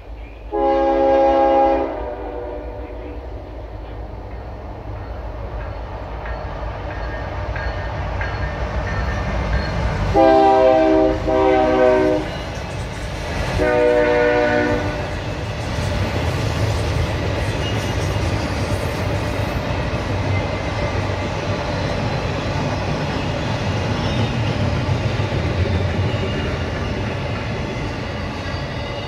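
Freight train's multi-tone horn sounds four blasts: one about a second in, two back to back around ten seconds in, and a last one a couple of seconds later. Under and after them comes the steady rumble and rail noise of a double-stack container train rolling past, growing louder as it goes by.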